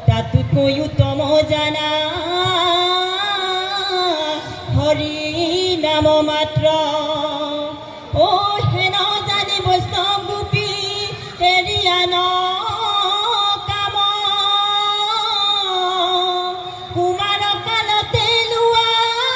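Assamese diha naam devotional singing: a man's voice sings a long, gliding melody through a microphone, over steady strokes of a two-headed hand drum.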